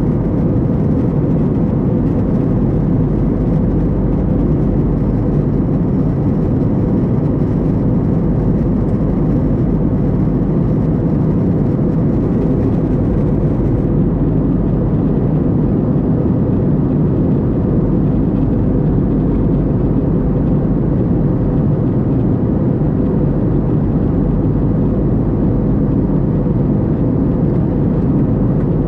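Steady engine and airflow noise inside the cabin of an Airbus A321neo in flight: an even, deep rumble with a faint steady hum on top.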